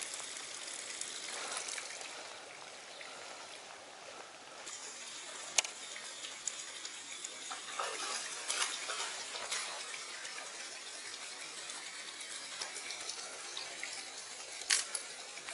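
Steady rush of flowing water, broken by a few short sharp splashes and clicks, the loudest about five and a half seconds in and another near the end, as a topwater lure is worked across the pool.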